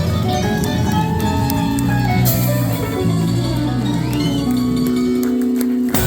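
Live band music with guitar to the fore, moving through several notes and then holding one low note, closed by a sudden hit near the end.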